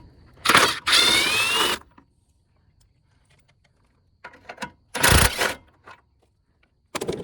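Cordless power tool on a 13 mm socket running in short bursts, loosening the radiator support bolts. The longest burst comes about a second in with a whine that shifts in pitch, and two shorter bursts follow later.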